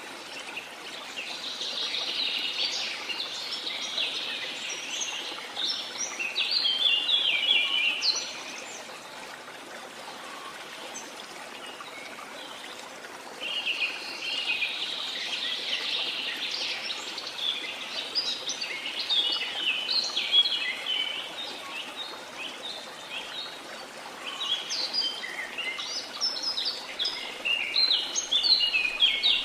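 Waterfall rushing steadily, with three long bouts of many birds chirping over it, separated by stretches where only the water is heard.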